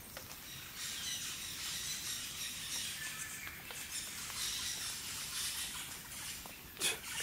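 A parrot calling noisily from the forest canopy, a busy stream of high chirps and chatter, with one sharp click near the end.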